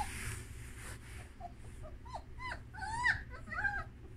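Puppies a little over three weeks old, German Shepherds, whimpering: several short, high squeals that rise and fall in pitch, the loudest about three seconds in.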